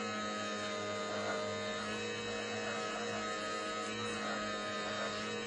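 Electric potter's wheel running, giving a steady, even hum made of several level tones.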